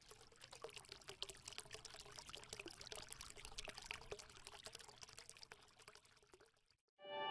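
Faint water sound effect, a quick run of small pops and trickles like bubbling or pouring water, which stops abruptly near the end. Music with held notes starts just after it.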